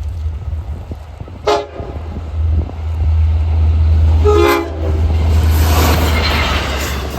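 LIRR DM30AC diesel locomotive passing a grade crossing: two short horn blasts, about a second and a half in and again near the middle, over the low rumble of the engine. Near the end the rush of the train's wheels and cars grows louder.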